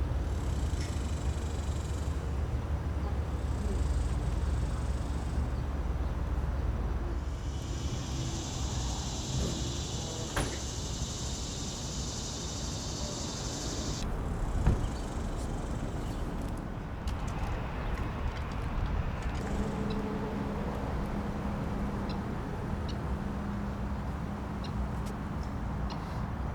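Street ambience with a steady low rumble of traffic. A high hiss or buzz runs for about six seconds in the middle. A single knock comes soon after it, and a low steady hum sets in near the end.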